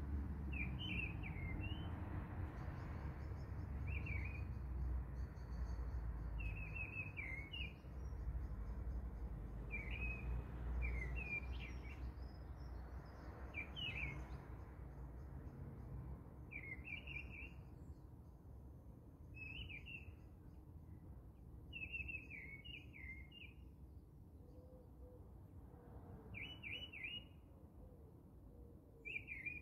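A bird chirping in short, quick phrases repeated every two to three seconds, over a low background rumble that fades after about twelve seconds.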